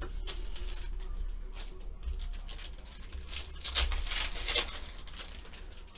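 Paper and foil rustling and crinkling as trading card packs and cards are handled, with a louder stretch of crinkling about three and a half to four and a half seconds in.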